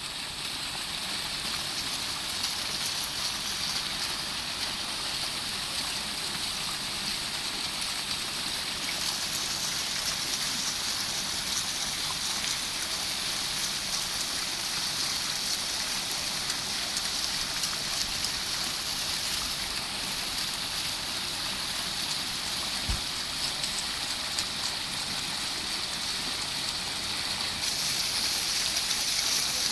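Fountain water splashing and gurgling, a steady rush of falling water.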